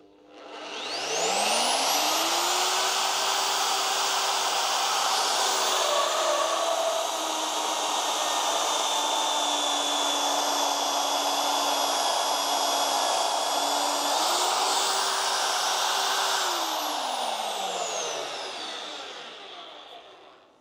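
A Vevor magnetic drill's motor spins up with a rising whine and runs while an annular cutter bores into steel. The pitch sags a little as the cutter takes load, picks up again after about 14 seconds as the load comes off, and then the motor is switched off and winds down.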